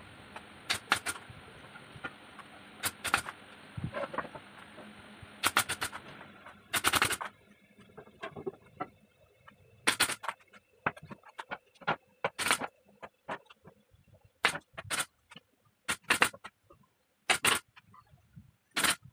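Pneumatic nail gun firing nails through wooden battens into plywood: sharp single and paired shots at irregular intervals. A steady hiss runs underneath for the first seven seconds or so, then drops away.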